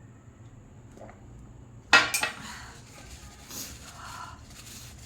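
Dishes and cutlery clattering: a sharp clatter about two seconds in, followed by lighter clinks and handling noise.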